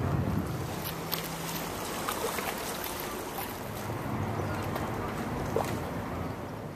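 Waterfront ambience: a steady low rumble with faint distant voices and a few small clicks.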